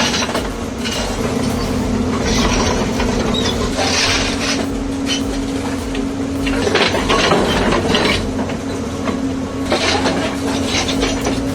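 A heavy machine's diesel engine running at a steady pitch, with several irregular bursts of rattling, clanking noise over it.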